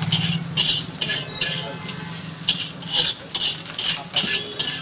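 Flat metal spatula scraping and tossing fried rice in an iron wok: repeated scraping strokes, a few a second and irregular, with thin squeaky metal-on-metal tones.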